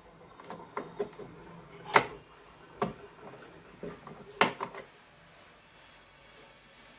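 Scattered clicks and knocks of hands handling wires and the plastic case at a PWM solar charge controller's screw-terminal block, the two loudest about two seconds and four and a half seconds in, stopping about five seconds in.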